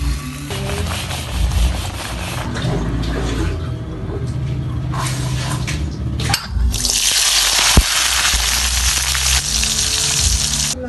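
Water running in a steady stream, starting abruptly about two-thirds of the way in and running to the end, over background music.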